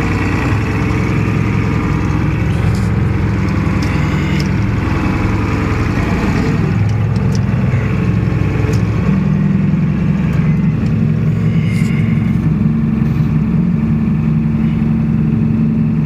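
Farm tractor's diesel engine running steadily under load while it pulls a field cultivator, heard from inside the cab as a constant low drone.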